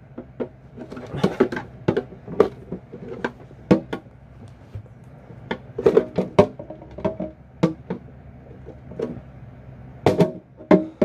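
Claw hammer striking a screwdriver driven into the hinge of a hard plastic anti-theft security box: a string of irregular sharp knocks, some in quick bunches.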